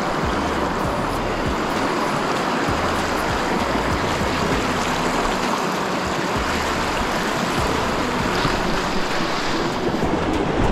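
Shallow, stony river rushing steadily over a riffle, with irregular low rumbles of wind buffeting the microphone.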